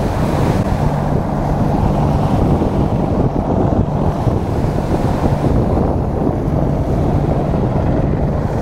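Wind buffeting the microphone over breaking surf, with a steady low engine drone, strongest in the first few seconds.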